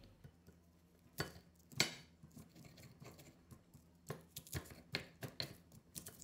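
Stone pestle (ulekan) pounding and grinding garlic and shallot with salt in a stone mortar (cobek): irregular sharp knocks of stone on stone. They come a few at a time at first and more often after about four seconds.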